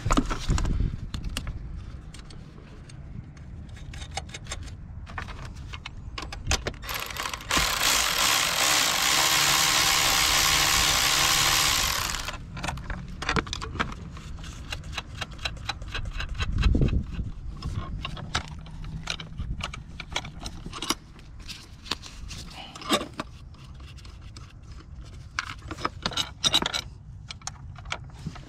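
Hand ratchet clicking and metal tools clinking while the battery hold-down bracket is tightened. A loud steady noise lasting about four and a half seconds breaks in about a quarter of the way through.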